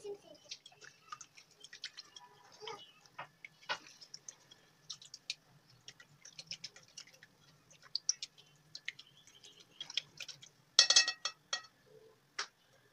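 Silicone whisk clicking and tapping irregularly against a glass mixing bowl while whisking an egg batter, with a louder cluster of knocks about eleven seconds in.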